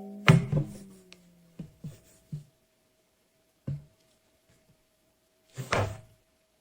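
Cartoon sound effects: a thud with a short low ring about a third of a second in, then a few soft knocks spread over the next few seconds, and a brief louder, noisier burst near the end. A faint steady hum lies underneath.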